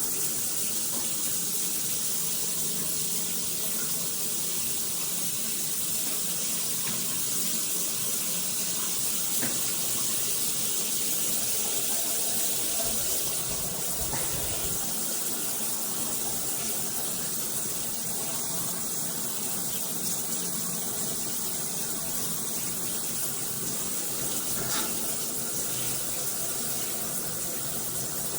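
Water spraying steadily from a Hibbent all-metal shower head, an even hiss with no break.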